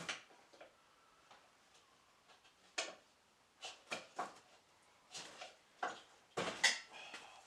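Irregular sharp clicks and knocks, a dozen or so, with the loudest cluster about six and a half seconds in, typical of hand tools and parts being handled while working on a car.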